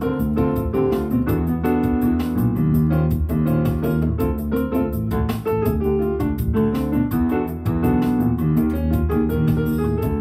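Jazz played on a digital stage keyboard with a piano voice: sustained chords under a moving melodic line, with a steady fast ticking beat in the treble.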